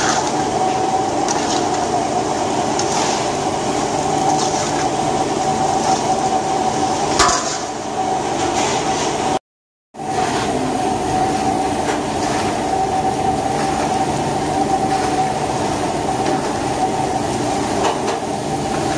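Rice grains being stirred and scraped with a steel ladle in a large stainless-steel pot as they toast in oil before the water goes in, with a repeated swish about once a second. A steady machine hum runs underneath, and the sound drops out briefly about halfway through.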